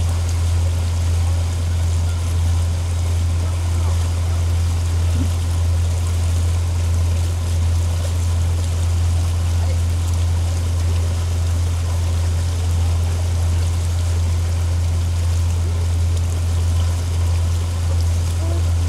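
Kent 28 motor cruiser under way at steady cruising speed: the engine runs as a constant low drone, with water rushing and splashing along the hull.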